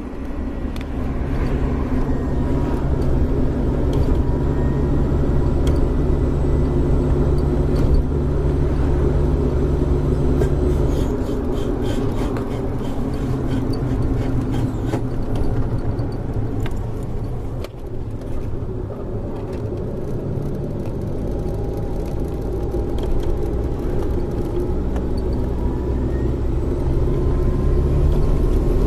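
Suzuki Jimny JA11 running, a steady low rumble with a faint whine from its front wheel hub, the noise of a front hub bearing that has play and has begun to seize. The rumble drops about eleven seconds in.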